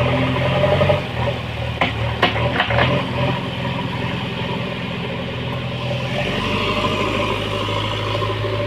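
JCB backhoe loader's diesel engine running steadily at low speed, with a few sharp clanks about two to three seconds in.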